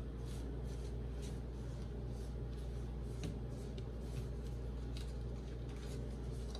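Hands pressing pastry crust edges down onto foil pie tins: soft rustling and scraping with scattered light crinkly ticks, over a steady low hum.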